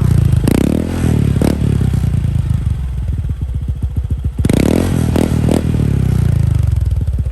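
Honda ADV 150's single-cylinder four-stroke engine breathing through an aftermarket VMAX Racing Power Pipe exhaust, running with a rapid, even pulse and revved in short throttle blips: once about half a second in, again a second later, and several quick ones in a row past the middle, settling back toward idle between them.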